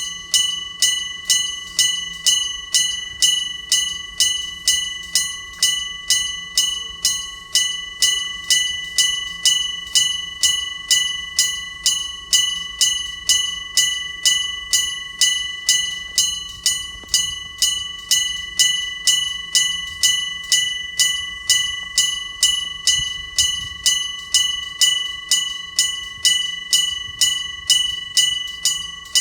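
Railway level-crossing warning bell ringing steadily, about two ringing strikes a second, each a clear metallic tone that dies away quickly. It signals that the crossing is closed for a passing train.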